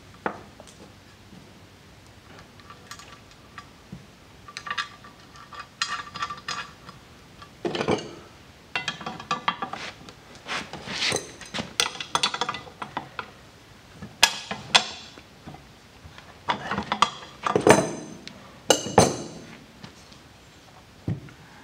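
Metal clinks and clatter of small hardware and a wrench: washers, a nut and a bulkhead fitting being handled and tightened on a fuel cell fill plate. Irregular sharp clinks, some ringing briefly, with a few louder knocks near the end.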